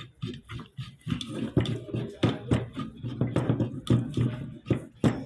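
Irregular knocks and clicks of hand tools on pipe fittings during plumbing work, about two a second.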